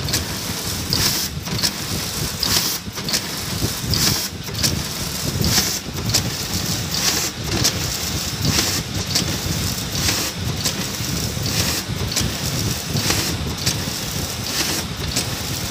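Vertical form-fill-seal packing machine running as it bags caramel-coated popcorn: a steady mechanical clatter and rumble, with a hiss that swells and drops in a regular cycle about every second and a half.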